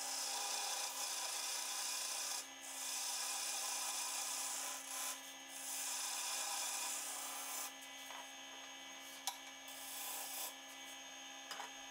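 Small wood lathe running with a steady low hum while a hand-held tool scrapes the spinning apricot-wood tenon in three passes of about two seconds each, a dry scraping hiss. The cutting fades over the last few seconds.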